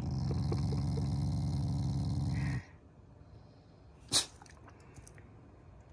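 Black Shiba Inu growling steadily, a low, rapidly pulsing growl that stops abruptly about two and a half seconds in; it is a playful, demanding growl, not an angry one. A single short, sharp noise follows about four seconds in.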